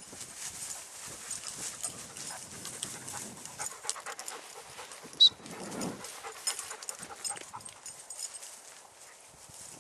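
A Weimaraner panting as it pushes through tall, dry grass and weeds, with a steady rustle and crackle of the stems. About five seconds in, a brief, sharp high-pitched chirp is the loudest sound.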